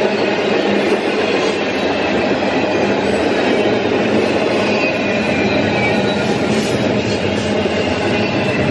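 Double-stack intermodal freight train rolling past at close range: a loud, steady rumble of steel wheels on rail, with faint high wheel squeal running over it.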